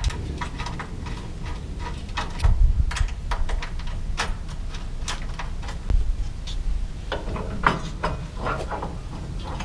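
Scattered clicks and light metallic knocks of bolts, washers and an LED light bar bracket being handled and fitted by hand against the car's thin sheet-metal front support, over a steady low rumble.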